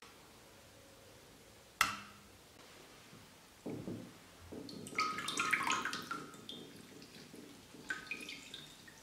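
Water splashing and dripping in a glass bowl as soaked gelatin sheets are lifted out and squeezed by hand, loudest a little past the middle, with a few more drips near the end. A single sharp click comes about two seconds in.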